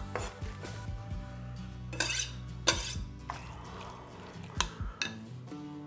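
A metal utensil scraping and clinking against a glass bowl as chopped parsley is mixed into raw minced meat filling. There is one longer scrape about two seconds in and a few sharp clinks after it, over quiet background music.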